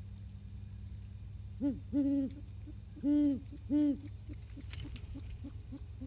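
Great horned owl hooting: four deep hoots, a short one and then a longer one, a pause, then two more.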